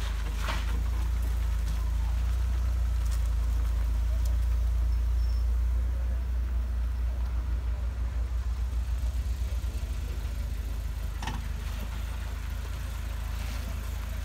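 1980s Opel saloon engines running at low speed as the cars drive off, a deep steady rumble that swells over the first few seconds and then throbs unevenly for a while.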